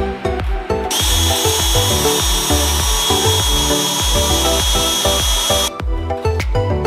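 Cordless drill running with a steady high whine as it drills the aluminum wing structure. It starts about a second in and cuts off abruptly about a second before the end, over background music with a steady beat.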